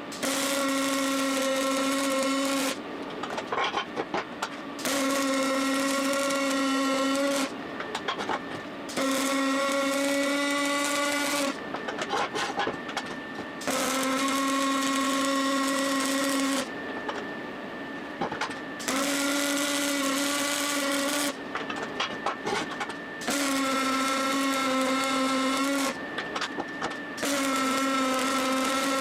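Electric power-tool motor run in about eight bursts of two to three seconds each, holding the same steady whine every time, with short pauses between the bursts.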